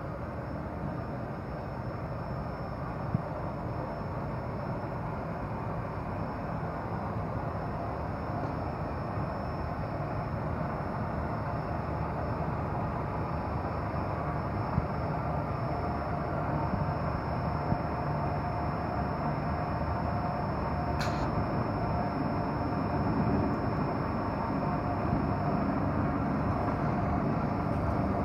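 Spiral mesh tube forming machine for dust filters running steadily as it winds metal mesh strip into a spiral tube. It makes a continuous mechanical running noise with a faint high steady whine, gradually getting louder, with a few sharp clicks.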